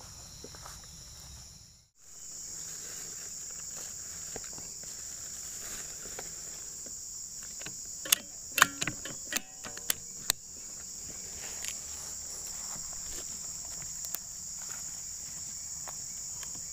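Steady high-pitched chorus of insects, with a cluster of sharp clicks and knocks about eight to ten seconds in.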